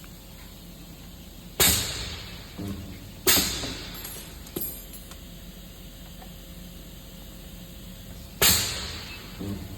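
Special-purpose projection welding machine cycling: three sudden hissing bursts, each fading away over about a second, with a few smaller clicks between them.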